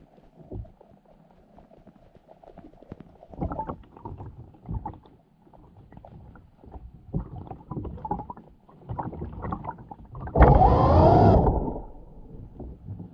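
Underwater water noise picked up by a camera moving through the sea over seagrass: scattered muffled knocks and water movement, with one louder rush lasting over a second about ten seconds in.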